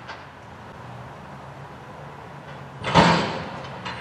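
Front-loader garbage truck's diesel engine and hydraulics running steadily while its forks hold a dumpster upended over the hopper, with one loud crash about three seconds in as the dumpster empties, and a few lighter knocks near the end.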